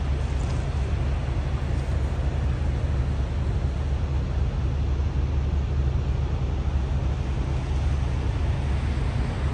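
Norfolk Southern diesel locomotive's engine running at a distance: a steady low rumble.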